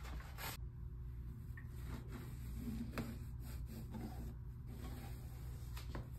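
A cloth rubbing over the wet skin of a carved pumpkin as it is wiped dry, with a few light knocks and scrapes as the pumpkin is handled, over a steady low hum.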